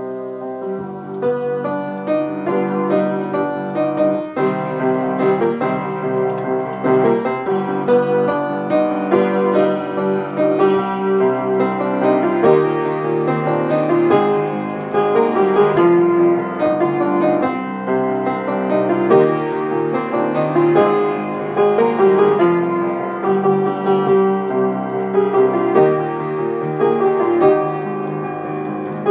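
Upright piano played solo: a continuous run of chords with a melody line above them.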